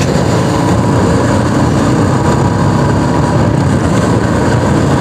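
Royal Enfield Bullet's single-cylinder engine running steadily while riding, with a continuous rush of road and wind noise.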